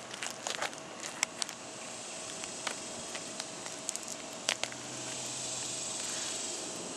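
Scattered crackling and scuffing of shoes and hands on gritty asphalt roof shingles as loose shingle flaps are handled. A soft swell of rushing noise comes in about five seconds in and fades near the end, over a faint steady hum.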